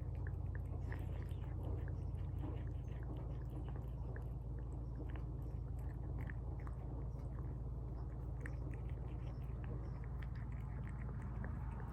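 A pet eating tuna from a bowl: wet chewing and smacking make many small, irregular clicks, several a second, over a steady low hum.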